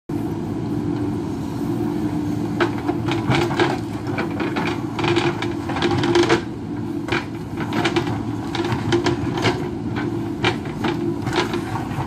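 JCB backhoe loader's diesel engine running steadily under load while its backhoe bucket scrapes and knocks against hard rock, with irregular clatters of loosened stone.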